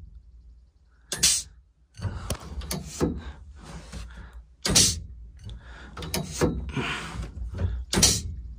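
Motion Raceworks air-release parachute handle firing three times, a few seconds apart: each press of the button opens the MAC solenoid valve for a short, sharp blast of compressed air as the air cylinder yanks the release handle, with clunks and rattling between the blasts.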